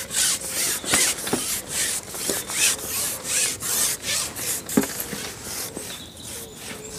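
A fishing pole being shipped back by hand while a fish is hooked: the pole slides over the angler's hands and lap in a run of rasping rubs, about two and a half strokes a second, easing off near the end.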